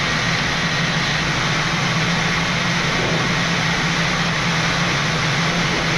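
Boeing 787 flight-deck noise on final approach: an even, steady rush of airflow and air conditioning over a constant low drone.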